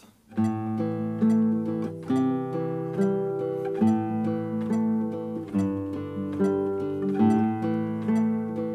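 Nylon-string classical guitar fingerpicking a melody over a bass line at a slow, even pulse of about 70 beats a minute, starting a moment in.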